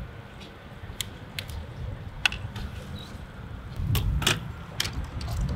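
Handling noise: a string of sharp clicks and knocks over a steady low rumble, the loudest pair about four seconds in.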